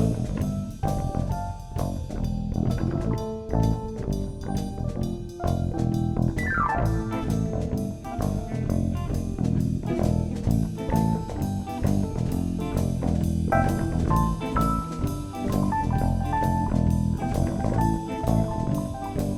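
Rockabilly band's instrumental break: a lead guitar line with a quick downward slide about six seconds in and an upward slide near the middle, over bass and drum kit.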